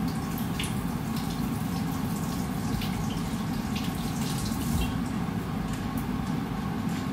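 Kitchen tap running into the sink in a steady stream, with scattered small drips and clicks of handling.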